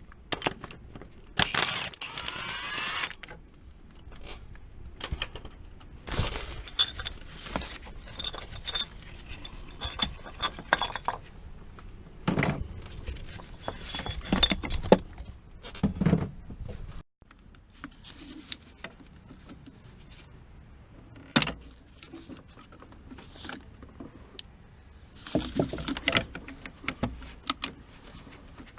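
Hand tools working on a car: scattered metallic clinks, knocks and rattles, with a short spell of rapid ratcheting about two seconds in.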